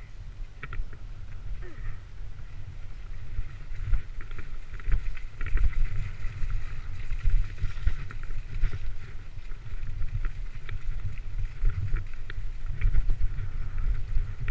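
Wind buffeting the microphone of a bike-mounted camera as the bicycle rolls fast down a rough grassy hill, a gusting low rumble, with scattered clicks and knocks from the bike jolting over the bumps.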